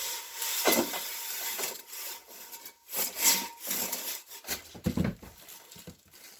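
Irregular scraping, rubbing and a few knocks of wood being handled.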